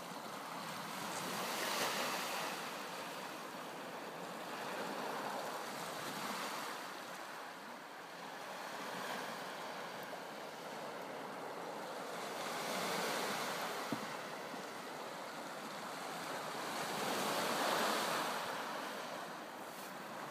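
Lake Superior waves washing onto the shore, the wash swelling and easing every few seconds, with a little wind.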